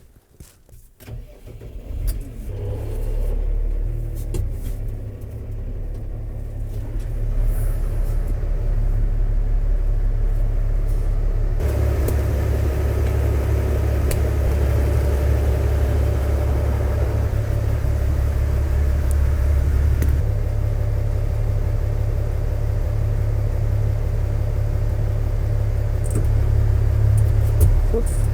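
New Holland TS135A tractor's diesel engine running, building up in level over the first several seconds and running louder from about twelve seconds in.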